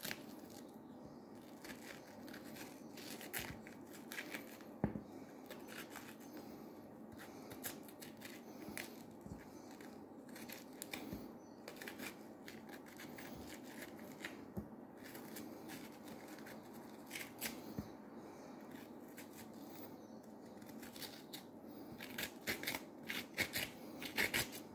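Teaspoon scraping the flesh out of a courgette, a faint run of small irregular scrapes and clicks that come quicker near the end.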